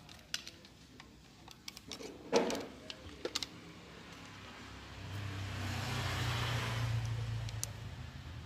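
Small clicks and knocks of hard plastic model parts being handled and pressed together. From about five seconds in, a steady low drone with hiss swells up and eases off near the end.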